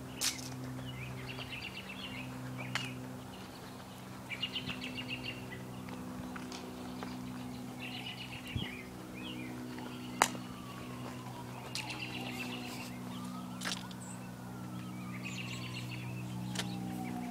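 Small birds chirping in short bursts of rapid notes every second or two over a steady low hum, with a few sharp clicks.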